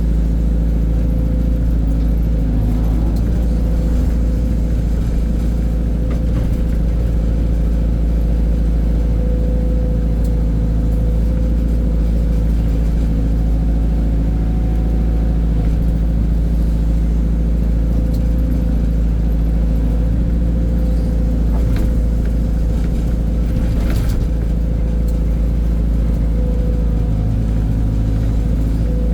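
Heavy diesel machinery engine running at a steady drone, heard from inside the air-conditioned operator's cab, with a couple of faint clicks about three-quarters of the way through.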